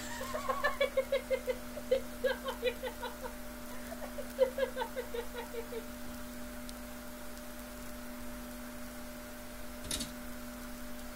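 Rapid, high-pitched laughter-like vocal pulses, about seven or eight a second, in two runs: one of about three seconds, then after a short pause one of about two seconds. A short click comes near the end.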